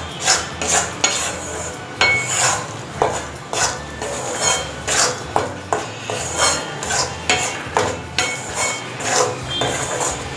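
Metal spatula scraping and knocking against a metal pan while stirring flour roasting in ghee, in repeated strokes about twice a second.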